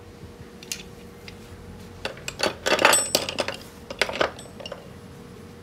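Steel wood chisels clinking and knocking together as they are handled and set down. A light tap comes a little under a second in, then a cluster of clinks from about two to three seconds in, the loudest near three seconds, and a last few around four seconds.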